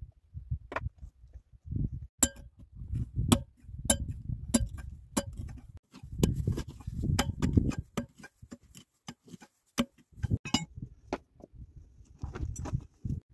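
Digging stony ground with a small metal hand pick. A run of sharp clinks of metal striking stone is joined by scraping and crunching of soil and gravel, with scattered knocks near the end.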